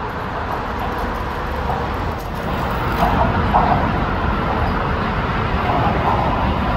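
Steady low rumble of a New York subway train approaching across the Williamsburg Bridge, mixed with road traffic noise.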